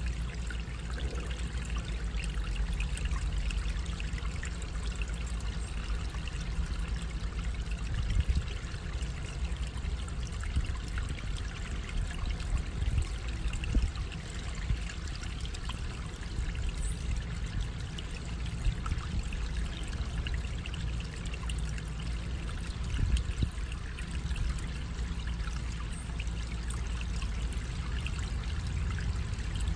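Shallow water trickling and pouring through a small concrete culvert, in a steady flow with a few briefly louder splashes.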